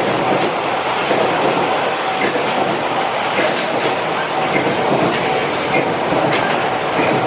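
Freight train hauled by a JR Freight EF210 electric locomotive running past, a loud steady rolling noise that carries on without a break, with faint brief high squeals from the wheels on the rails.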